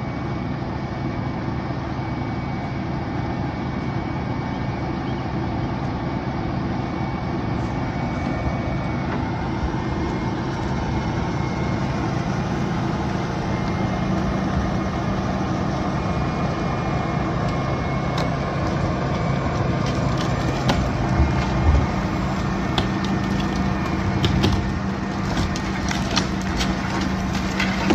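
A heavy machine's engine running steadily, picking up a little in pitch about halfway through. Wood cracks and splinters several times near the end.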